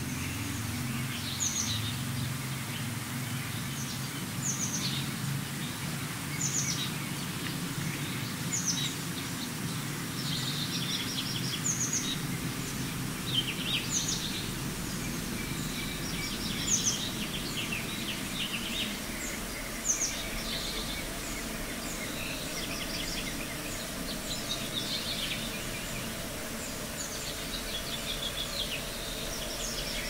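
Birds singing: a short, sharp high call repeats every two to three seconds, with busier trills between. Under it is a low background rumble that fades about halfway through.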